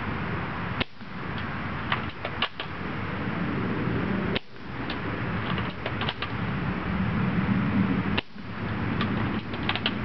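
Spring-powered bolt-action airsoft sniper rifle (UTG MK96) being cycled and fired over and over: sharp mechanical clicks in small clusters every few seconds, over steady background noise.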